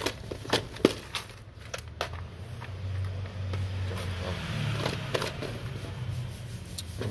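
Light clicks of small tools being put down on a workbench, then the scrape and rattle of a clear plastic parts box of resistors being slid into place, over a low steady hum.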